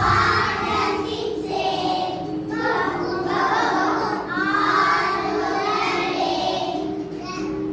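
A group of young children singing together in unison over a backing music track.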